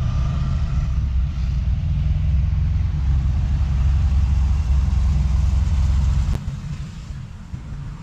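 Volkswagen Fusca (Beetle) air-cooled flat-four engine running while the car is driven, a loud, steady low-pitched pulsing that drops noticeably about six seconds in.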